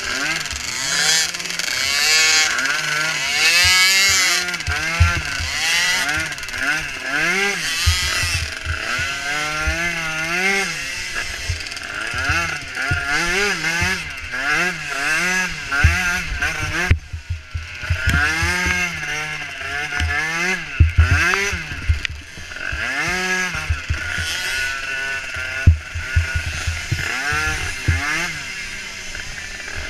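Small micro ATV engine racing, its revs rising and falling about once a second as the throttle is worked, with frequent knocks from the rough ground. Near the middle it drops off for a moment before revving again.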